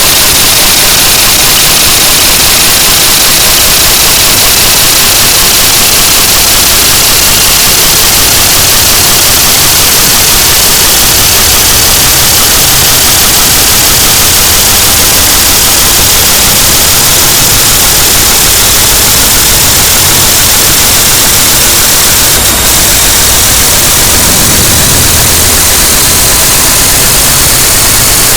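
Very loud, harsh static-like noise, a dense hiss filling the whole range and held near maximum level throughout, with faint shifting tones buried in the low end.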